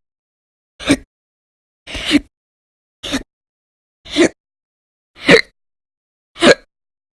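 A woman hiccuping loudly and violently: six short, sharp hiccups at a steady pace of about one a second. They belong to a persistent hiccup bout that lasts for hours.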